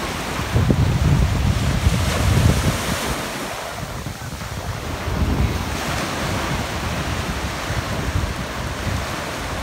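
Small waves breaking and washing up a sandy beach, with wind buffeting the microphone in gusts, strongest in the first few seconds.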